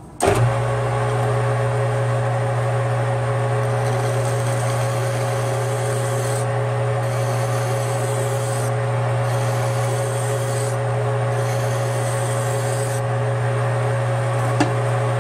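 Metal lathe starting up and running steadily with a low motor hum, while a hand file is drawn across the spinning metal fitting in several long rasping strokes to chamfer its back edge.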